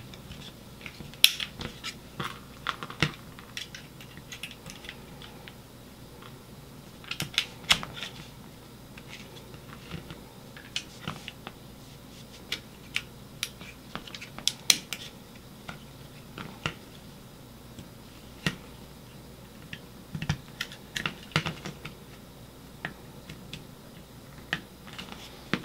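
Scattered light clicks and taps of a Glock 17's polymer and steel parts being fitted back together by hand, with the trigger assembly going back into the frame. The clicks come irregularly, bunched a little more thickly about seven seconds in and again around the middle.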